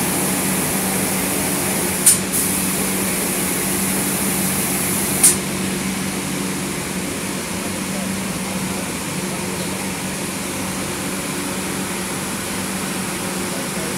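Automatic door spray-painting machine running: a steady high hiss of air over a low machine hum, with short sharp bursts twice close together about two seconds in and once more near five seconds.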